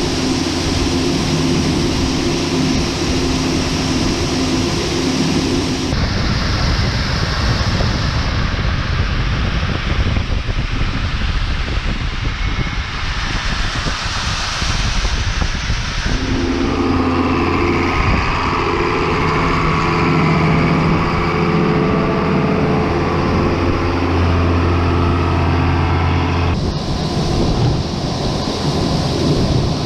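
Farm harvest machinery engines running steadily over a broad rushing noise. The engine tone changes abruptly three times, as from one machine or shot to another.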